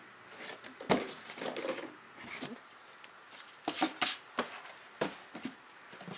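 Cardboard boxes being handled and set down: scattered knocks and cardboard scrapes and rustles, with the loudest knock about a second in and a quick run of knocks around four seconds in.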